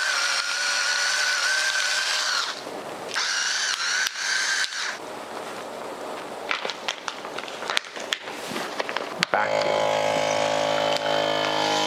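Electric pepper grinder whirring in two short bursts, then seasoning shaken onto the meat with light taps. About nine seconds in, a FoodSaver vacuum sealer's pump starts and runs with a steady hum, drawing the air out of the bag around the steak.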